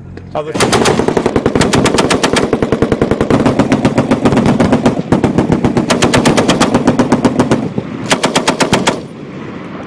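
M240 medium machine gun firing long bursts at about ten rounds a second, with a brief break about five seconds in, a short pause near the end, then one last shorter burst.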